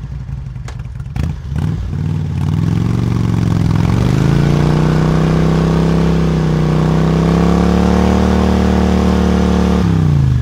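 Biski amphibious motorcycle's engine revving up as it rides off the bank into the water, then held at a steady high pitch while it speeds across the water, dropping away just before the end. A few sharp clicks and knocks in the first couple of seconds.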